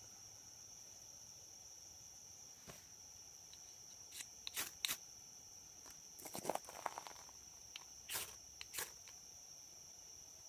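Steady high-pitched drone of insects, crickets or similar, with a scattered run of short rustles and clicks through the middle.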